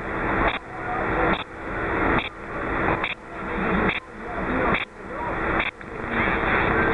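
Hiss and static from an 11-metre transceiver's receiver speaker, tuned to 27.520 MHz. The noise pulses regularly, cutting out sharply and swelling back up a little less than once a second, then runs steady near the end.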